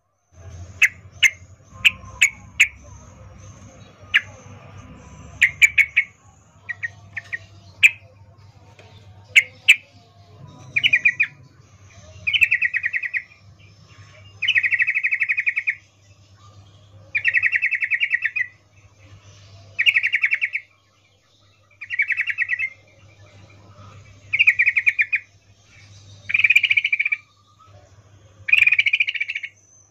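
Yellow-vented bulbul (trucukan) calling: a string of sharp chip notes in the first few seconds, then short bubbling chatters, each about a second long, repeated every two to three seconds. It is a female's mating call to a male.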